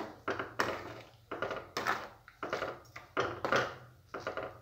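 Metal ladle stirring milk and rice for kheer in a metal pan, scraping and knocking against the pan's sides and bottom in quick, irregular strokes, about two to three a second.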